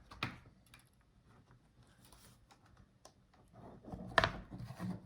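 Light clicks and knocks of laptop parts being handled on a workbench: one click just after the start, a near-quiet stretch, then a cluster of small clicks and scrapes in the last second and a half.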